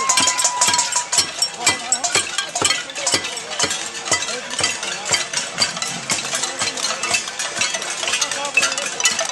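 A crowd of marchers banging pots and pans, a dense, irregular metallic clatter of many overlapping strikes: the noise of a pot-banging protest (casserole march).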